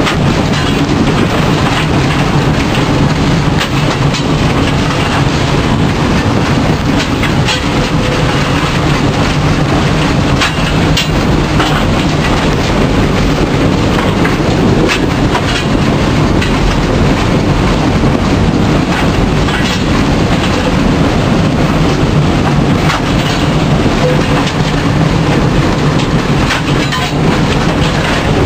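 Cab noise of the steam locomotive V-820 under way: a loud, steady din of the running locomotive and its wheels on the rails, with scattered sharp clanks.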